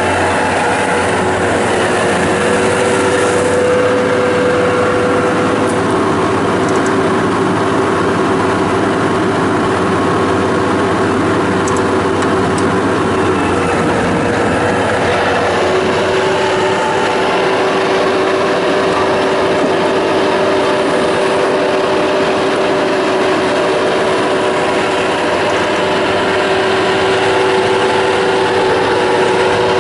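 Bobcat T190 skid steer's diesel engine running steadily, with a whine whose pitch shifts a few times.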